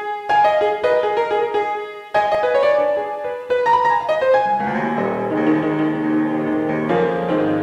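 Solo piano playing single struck notes in a slow melody, with a short break about two seconds in. From a little past halfway, fuller low chords ring on beneath the melody.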